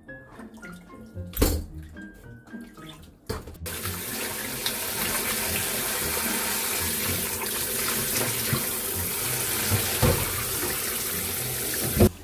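Kitchen tap running steadily into a glass bowl of beef short ribs, water splashing over the meat and a hand rubbing it as the blood is rinsed out. It starts about three and a half seconds in and stops just before the end. Before it there are faint background music notes and one sharp knock.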